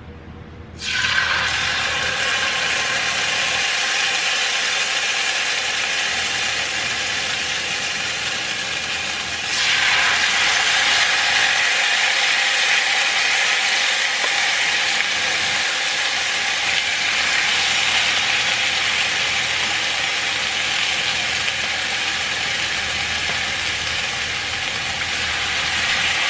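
Chipotle-marinated chicken sizzling in hot olive oil in a cast-iron skillet. The sizzle starts suddenly about a second in as the first pieces hit the oil, and grows louder about ten seconds in as more chicken goes into the pan.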